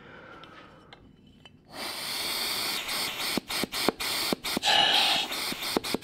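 Breath blown by mouth into a small port of a stock aluminium Subaru WRX turbo inlet housing, air hissing through its interconnected passages. The hiss starts about two seconds in and runs about four seconds, with several brief breaks. It shows that the vacuum line, the compressor-housing outlet and the internal port are all connected, which the owner takes as the path by which the stock part bleeds boost out of the compressor housing.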